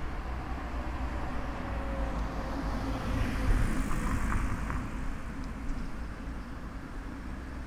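A car passing by on the street, its tyre and engine noise swelling to a peak about halfway through, then fading away over a steady low rumble.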